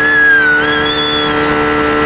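Mercury outboard motor running at speed, a steady drone with the rush of the wake under it. Over it, a high wavering tone slides up and down for the first second and a half.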